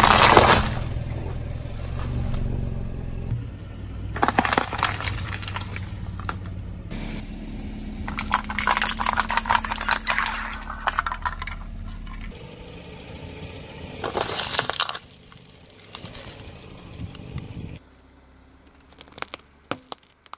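A car tyre rolling slowly over objects and crushing them, one after another: several separate bursts of crunching and cracking, among them a row of plastic cups being flattened about halfway through. A low car engine rumble runs underneath.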